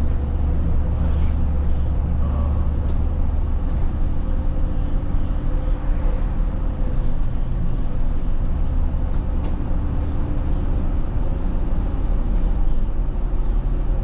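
Cabin noise of a moving Nishi Tokyo route bus: a steady low engine drone with road noise and a few faint rattles. The drone drops lower in pitch near the end.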